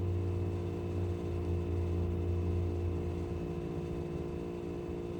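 Steady electrical hum with faint room noise; a lower drone underneath fades out about three seconds in.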